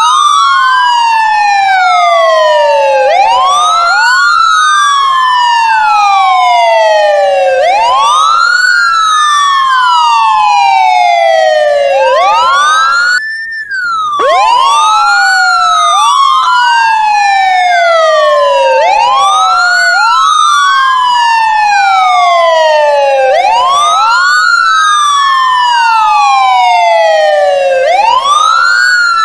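Ambulance siren wailing. Each cycle is a quick rise in pitch and a slower fall, repeating about every four seconds, with two siren tones overlapping slightly out of step. The sound cuts out for about a second roughly halfway through.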